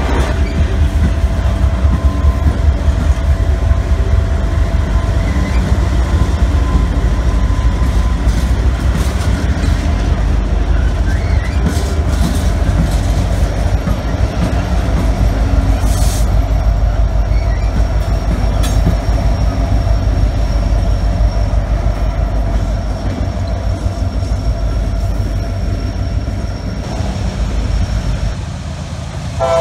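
Train rolling past with a heavy steady rumble and the knocking of wheels over the track. A thin high wheel squeal comes in about halfway through and runs on until the rumble eases near the end.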